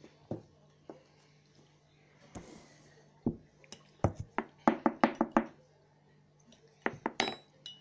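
A metal spoon stirring coffee in a ceramic mug, knocking against its sides: a few separate knocks, then a quick run of strikes about halfway through, and a couple of short ringing clinks near the end.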